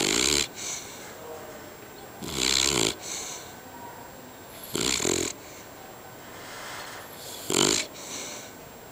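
A beagle snoring: four loud snores, each about half a second long, coming evenly about every two and a half seconds.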